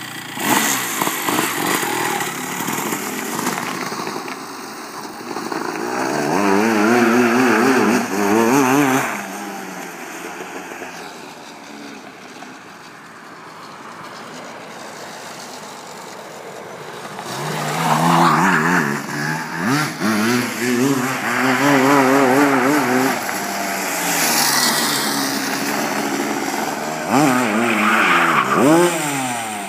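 Two-stroke go-kart engine with an expansion-chamber exhaust, revving up and dropping back again and again as the kart laps around. It is loud on three close passes, about seven, eighteen to twenty-three and twenty-eight seconds in, and quieter in between while the kart is farther off.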